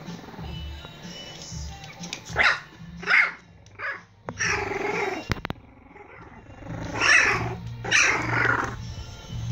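Four-week-old Prague Ratter puppies barking and growling as they play-fight, in a string of short bursts from about two seconds in.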